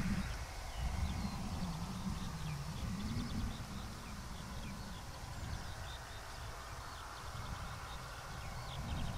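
Several small birds chirping and trilling in short, repeated high calls. Under them runs a low rumble that is loudest for the first few seconds and then eases.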